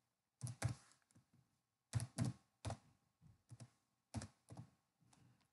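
Computer keyboard typing: about a dozen short, sharp keystrokes at irregular spacing.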